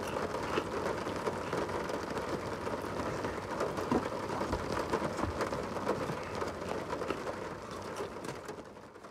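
Steady rain falling, with many small drop ticks, fading out near the end.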